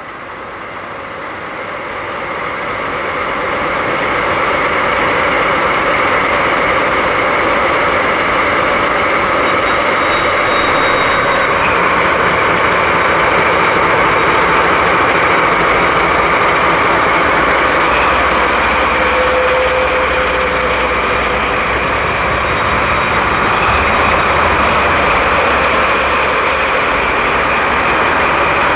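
Two JR DD51 diesel-hydraulic locomotives, coupled together, running their diesel engines as they haul a heavy rail-transport train slowly past. The engine noise swells over the first few seconds and then holds steady, with a deeper low rumble in the second half.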